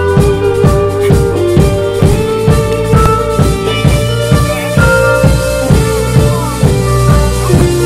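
Background music with a steady drum beat and sustained instrumental notes.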